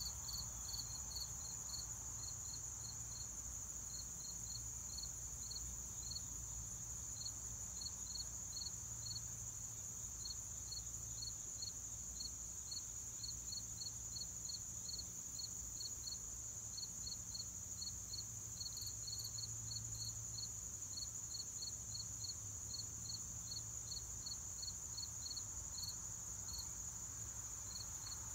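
Insects, crickets, calling steadily: a continuous high-pitched trill with short, lower chirps repeating several times a second.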